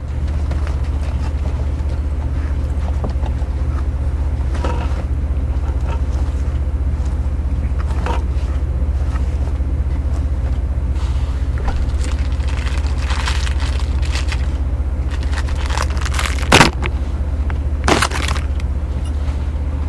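A steady low mechanical hum, like an engine or generator running, drones throughout. Two sharp clicks stand out near the end, a second and a half apart.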